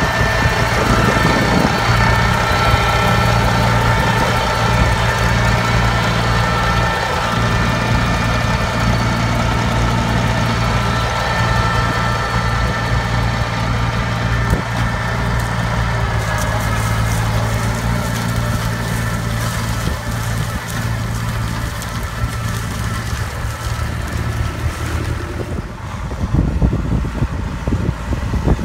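John Deere tractor's diesel engine running steadily under load while it pulls a cotton stalk pulling machine through the field. A high steady whine from the machinery sits over the engine for the first half and then fades out.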